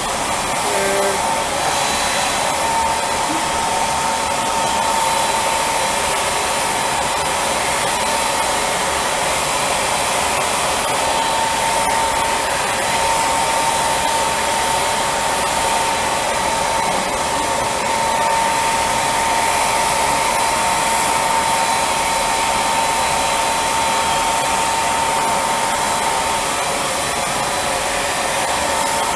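Spray-tan equipment blowing air steadily: the turbine of a hose-fed spray gun and a handheld drying blower make a constant rushing noise with a faint steady whine.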